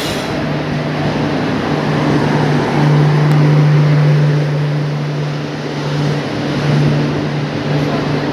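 A train pulling in alongside the platform: a loud rushing rumble with a steady low engine hum that swells and fades, loudest a few seconds in.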